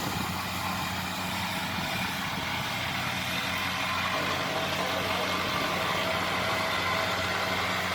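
Kubota 70 rice combine harvester's engine running steadily at an even speed.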